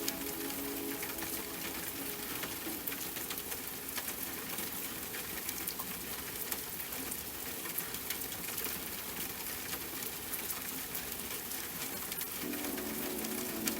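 Steady rain falling, an even hiss with many small drops pattering. A soft sustained music pad fades out about three seconds in and comes back near the end.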